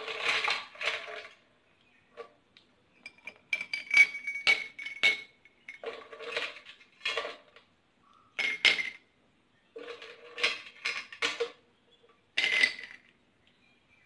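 Ice cubes dropped into a glass tumbler of syrup, clinking against the glass in about six separate bursts, some with a short glassy ring.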